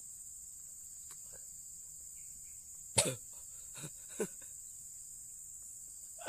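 A man coughing: one sharp cough about three seconds in and a smaller one a second later, a reaction to the burn of extremely spicy noodles. A steady high insect buzz runs underneath.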